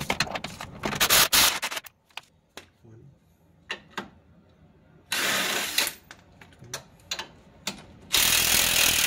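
Ratchet wrench with a socket on an extension clicking as it works the 17 mm bolts of a Honda Civic's front suspension, in bursts of rapid ratcheting at the start, about five seconds in and about eight seconds in, with scattered single clicks and knocks between.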